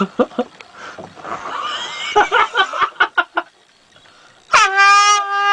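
A sleeping man snoring, then about four and a half seconds in a fog horn blasts suddenly: one loud, steady note that dips in pitch at its start and then holds.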